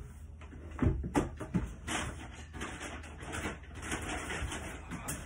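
Handling noise as a paper takeout bag is moved and someone gets up from a table: a few knocks in the first second or so, then rustling.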